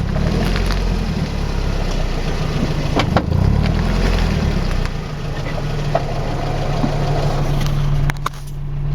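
Nissan S14 car running with a low mechanical rumble, the grinding noise from the driver-side rear wheel area that the car is being checked for. The rumble settles into a steadier hum about halfway through and dips briefly near the end.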